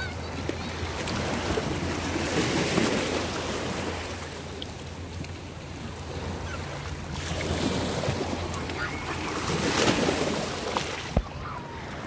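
Small waves splashing and lapping against the rocks of a stone jetty, swelling and falling every few seconds, with a steady low hum underneath. One sharp knock comes near the end.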